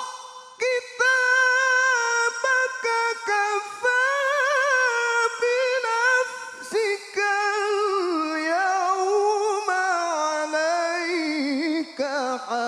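A man reciting the Qur'an in the melodic tilawah style, drawing out a verse in long ornamented phrases full of trills and slides. The line starts high and steps down to a lower pitch about eight seconds in, with only short breaks for breath.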